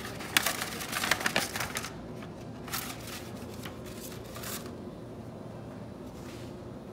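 Close crinkly rustling in two spells: one over the first two seconds and another from about three to four and a half seconds in, then only faint background.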